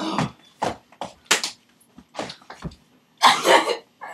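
Stifled giggling from girls: a string of short, breathy bursts in quick, irregular succession, with a longer burst about three seconds in.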